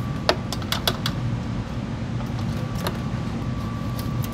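Clinks and light taps of a metal funnel being lifted out of a transmission fill tube, several sharp ones in the first second and a few more later, over a steady low hum.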